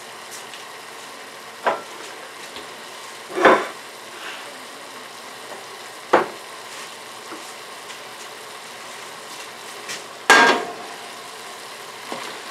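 Sliced sausage, onion, garlic and green bell pepper frying in an enamelled cast-iron pot: a steady sizzling hiss. A few short knocks sound over it, the loudest about ten seconds in.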